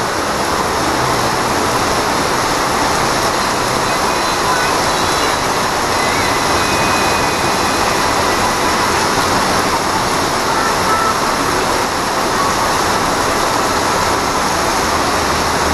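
Heavy rain falling steadily: a loud, even hiss of a downpour on pavement.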